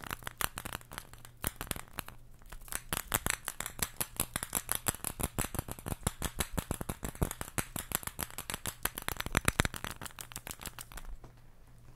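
Homemade rattle of white balls hung on red strings from a wooden dowel, shaken so the balls knock together in a rapid, uneven clatter of clicks that stops near the end.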